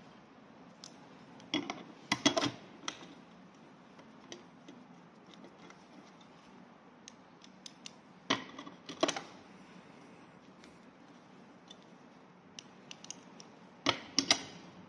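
Small metal screws and a T-handle hex key clicking and clinking against a scooter's seat-mount plate as the mounting screws are fitted and turned. The clicks come in three short clusters: a couple of seconds in, around the middle, and near the end.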